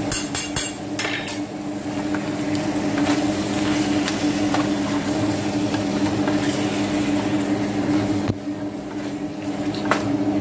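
A wooden spatula stirring and turning chicken pieces in a stainless steel pot, with a quick run of knocks and clinks against the pot about a second in and scattered scrapes after. A steady low hum runs underneath.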